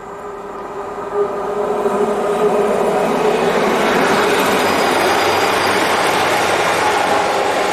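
Class 150 Sprinter diesel multiple unit approaching, its diesel engine drone and wheel rumble getting steadily louder over the first few seconds, then holding loud and even.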